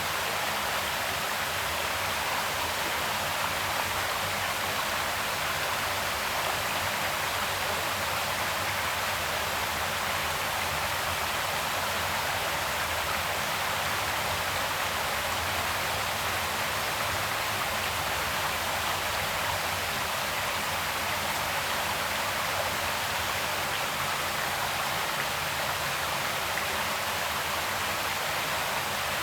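Creek water flowing steadily, an even rushing hiss with no change.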